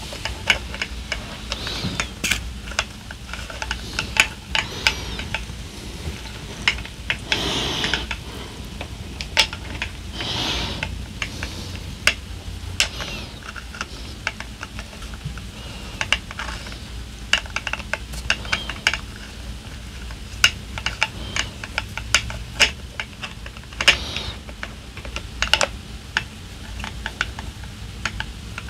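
Irregular light clicks and ticks of a screwdriver being turned to tighten screws in an air rifle's regulator housing, with a couple of brief rustles of handling.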